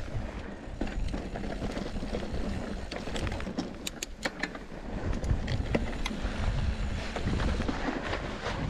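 Mountain bike ridden over a rough, rocky trail: steady tyre noise on dirt and stone, with frequent sharp clicks and rattles from the bike.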